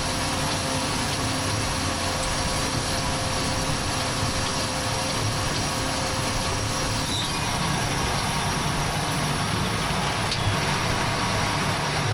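Tractor running steadily while pulling a round baler through hay, with a constant engine drone and the rattle of the machinery.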